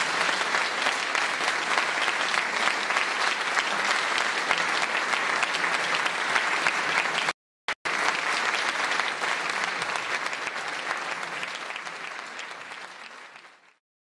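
Audience applauding steadily. It breaks off for a moment about halfway through, then fades out near the end.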